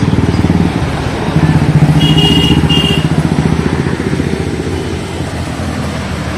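A motor vehicle engine running close by, a steady low throb. About two to three seconds in there are two short high-pitched tones.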